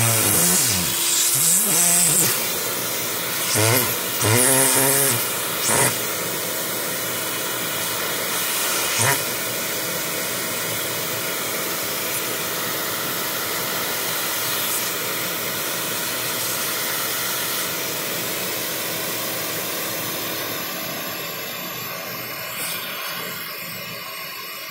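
Vacuum cleaner running steadily, its suction pulling at a capuchin monkey's lips pressed to the end of the hose. In the first six seconds there are several short, wavering pitched sounds, and there is a pop about nine seconds in.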